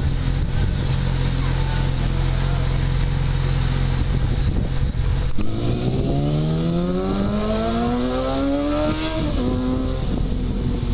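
Motorcycle engine running at a steady low idle. About five seconds in, a sport motorcycle pulls away, its engine note rising steadily for about three seconds, then dropping at an upshift and running on at a steady note.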